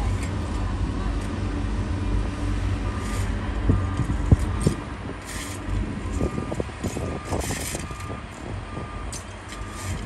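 Heavy earthmoving machinery's diesel engine running, with a reversing alarm beeping at a steady repeat. A few sharp metallic clanks come around the middle, and there are brief hisses.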